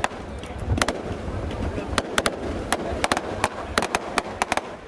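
New Year's Eve fireworks going off: a rapid, irregular series of sharp bangs and cracks, over a low background rumble.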